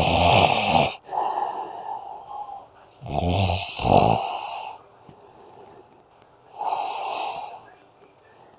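A sleeping man snoring: two loud snores with a low pulsing buzz, about three seconds apart, with softer breaths between them and one more near the end.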